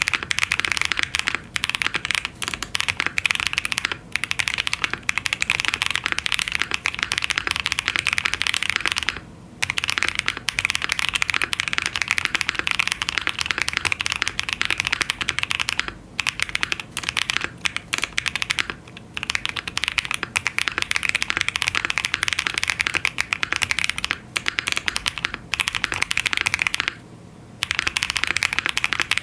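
Continuous fast typing on a mechanical keyboard with lubed Holy Boba tactile switches, polycarbonate plate, foamed case and GMK keycaps: a dense, muted clacking, broken by brief pauses about a third of the way in and again near the end.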